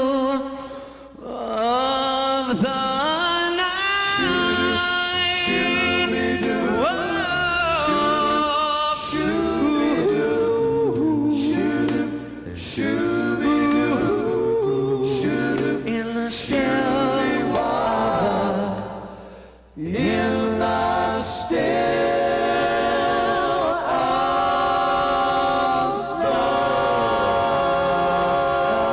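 Male vocal group singing a cappella in close harmony, a lead voice into a microphone over backing voices, with no instruments. The singing drops briefly twice, about a second in and about two-thirds of the way through.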